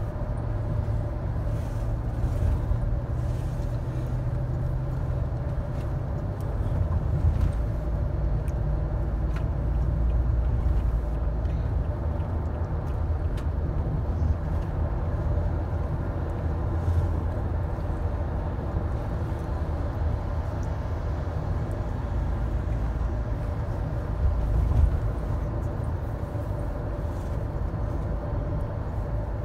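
Steady low rumble of a car's engine and road noise heard inside the cabin, with a faint steady hum above it.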